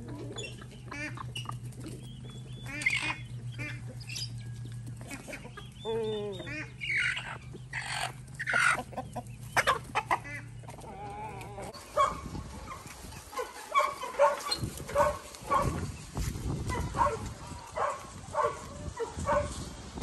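Free-range chickens and roosters clucking and calling, over a steady low hum for about the first half. After about twelve seconds the hum stops and a run of short, evenly repeated clucks follows.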